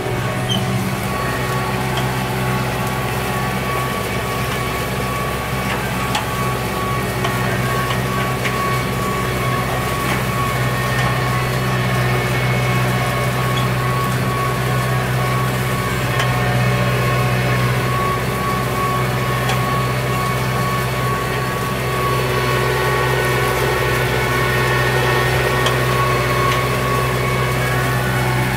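Kubota M7060 tractor's four-cylinder diesel engine running steadily under load while pulling a seven-shank chisel plow through the soil, heard from the cab.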